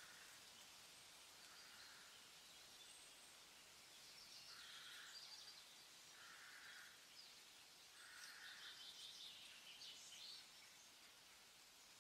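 Near silence, with faint soft chirps every second or two.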